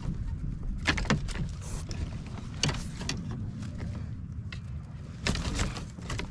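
Scattered knocks and clicks from handling a just-caught bluefish aboard a kayak, over a steady low rumble.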